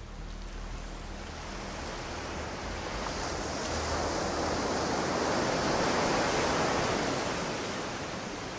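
Ocean surf: one slow swell of wave noise that builds to its loudest a little past the middle, then eases off, over a low steady hum.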